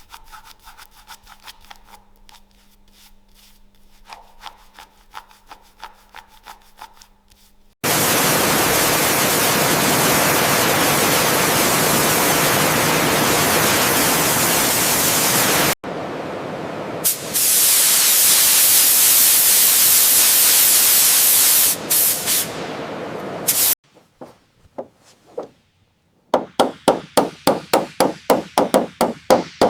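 Workshop tool sounds: faint ticking with a low steady hum, then two long stretches of loud, steady hissing air, the second broken by a few brief cuts. After a short pause come rapid regular strokes, about four a second.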